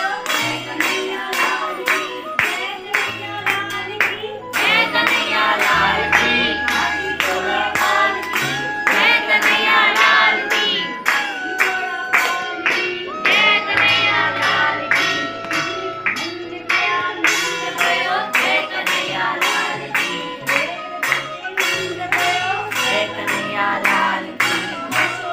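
Devotional song: singing with a light vibrato over a steady quick beat of about three strokes a second.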